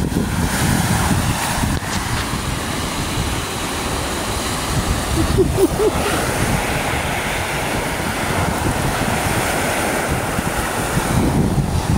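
Lake waves washing onto the shore, with wind buffeting the microphone in a gusty low rumble.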